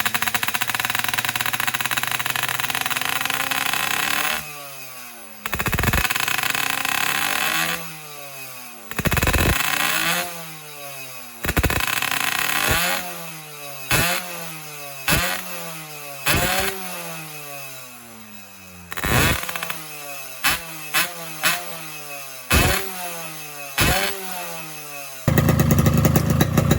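Two-stroke motorcycle engine with a boban expansion-chamber exhaust. It runs steadily, then is blipped again and again with quick throttle stabs, more than a dozen times, each rev falling back in pitch to idle. The blips come closer together toward the end, before a louder steady run.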